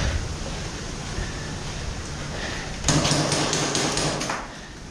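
Rapid airsoft gunfire: a burst of sharp snaps, about five a second, starting about three seconds in and lasting about a second and a half.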